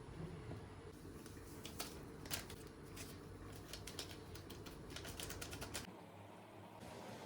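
A run of light, unevenly spaced clicks and taps, as of small hand work on a hard surface, over faint room noise; the clicks stop about six seconds in.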